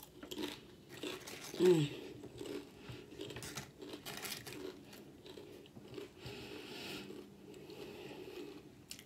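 A person chewing, with the irregular crunch of Doritos tortilla chips being bitten and chewed. There is a short voiced hum about two seconds in.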